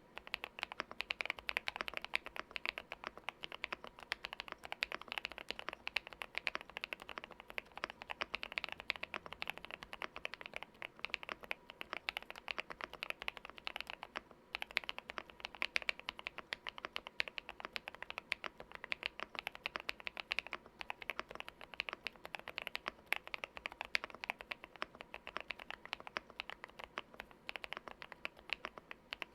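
Continuous fast typing on a GMK81 mechanical keyboard with lubed Wuque Studio Light Tactile switches, Cherry-profile keycaps, tape mod and case and plate foam: a dense run of keystroke clacks, pausing briefly about halfway.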